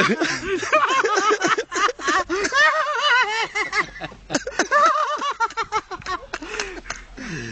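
A man in a fit of laughter, laughing in a fast run of short, high-pitched bursts, with a brief lull a little past the middle.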